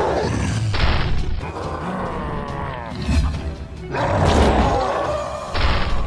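Cartoon fight soundtrack: background music under a monster voice growling, with whooshing hits about a second in and again near the end over low thuds.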